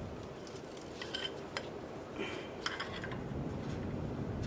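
Several light metallic clinks and taps of tools on a car's rusted exhaust flexi-pipe joint, some ringing briefly, over a steady low background noise.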